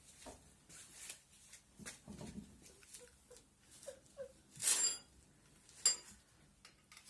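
Scattered clicks and knocks of tools and parts being handled, with a short loud rushing noise about two-thirds of the way in and a sharp click near the end. Faint short squeaks come in between.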